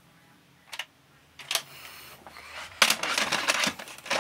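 Plastic VHS cassettes and cases being handled: a single click, then from about three seconds in a dense, loud run of clattering and rattling.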